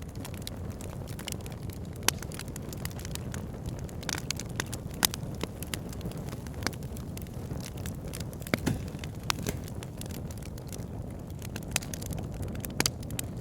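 Logs burning in a fireplace: a steady low rumble of flames with frequent sharp crackles and pops, a few of them louder than the rest.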